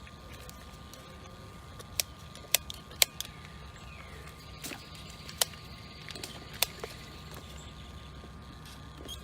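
Sharp metallic clicks and taps, about half a dozen between two and seven seconds in, as the run capacitor of an air-conditioner condenser unit is handled and tested, over a steady low hum.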